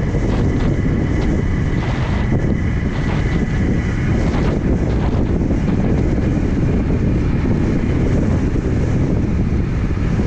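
Steady wind rushing over a helmet camera's microphone on a downhill skateboard running at about 30 to 33 mph, mixed with the roll of its wheels on asphalt.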